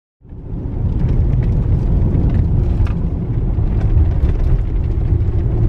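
Inside a Toyota RAV4's cabin while driving on a gravel road: a steady low rumble of tyres and engine, with occasional faint ticks. It fades in just after the start.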